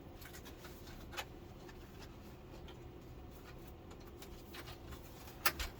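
A few light clicks and taps of small plastic backlight parts being handled in a dismantled LCD television, over a low steady room hum: one about a second in and a couple near the end.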